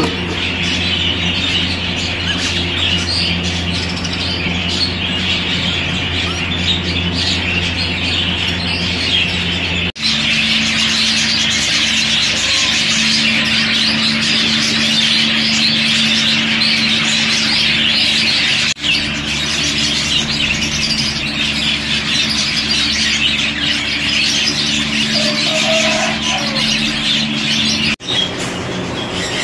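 A flock of exhibition budgerigars chattering continuously, a dense, high warbling over a steady low hum, breaking off briefly three times.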